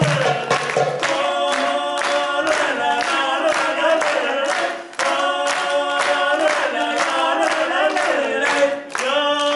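Voices singing a song with rhythmic hand clapping keeping the beat; a low brass note underneath drops out about a second in.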